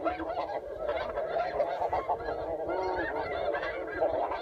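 Many geese honking at once, a dense chorus of short overlapping calls with no let-up.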